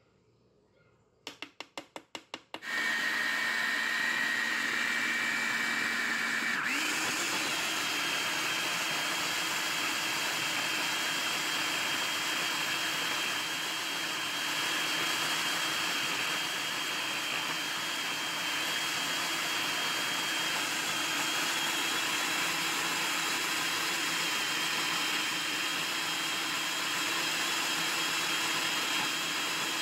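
Hamilton Beach food processor grinding almond meal into almond butter: the motor starts with a quick stutter of short bursts, then runs steadily with the blade churning the thick paste. Its whine jumps higher about seven seconds in and then holds steady.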